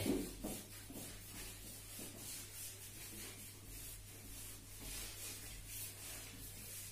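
A hand-held duster wiping marker off a whiteboard: faint, soft rubbing swishes in repeated strokes across the board, over a steady low electrical hum.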